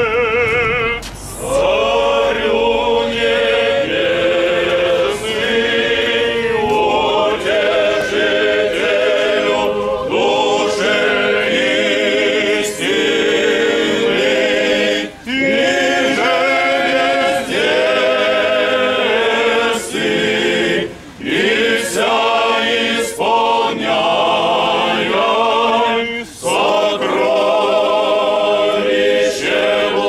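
A choir singing Russian Orthodox liturgical chant a cappella, in long phrases with a few short breaks between them.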